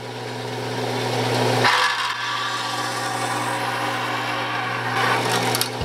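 Grizzly G9742 metal-cutting bandsaw, running vertically, with its blade cutting through 1/8-inch aluminum angle: a steady motor hum under the rasp of the blade in the metal. The hum drops off a little under two seconds in while the cutting carries on.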